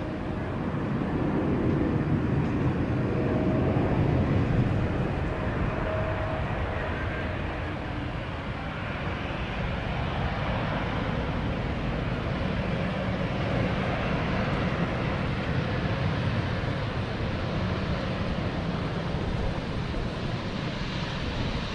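A twin-engine jet airliner's turbofan engines rumbling as it comes in low to land, swelling over the first few seconds. The noise dips briefly, then rises again and holds steady as the aircraft rolls out along the runway.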